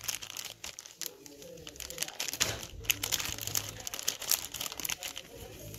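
Clear plastic packaging crinkling and crackling as a hand handles and opens a toy water gun's packet, with irregular sharp crackles throughout.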